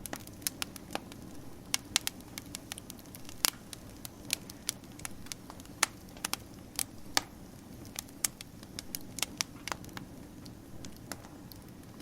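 Wood fire crackling: irregular sharp pops and snaps, a few to several a second, over a soft steady rumble of the burning fire.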